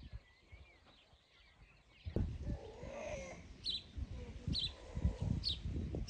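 Farmyard animal sounds. After a quiet start there is a brief lower animal call, then a bird chirps again and again, about once a second, over low thuds.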